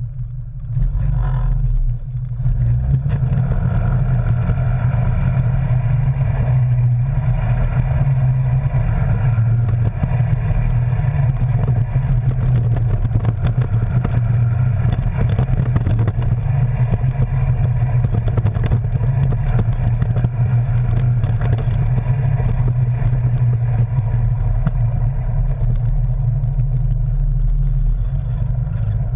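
Arctic Cat Wildcat Sport side-by-side's twin-cylinder engine, heard from the cab, picking up and getting louder about a second in as it pulls away, then running steadily under load while the machine clatters over a bumpy, rutted dirt trail.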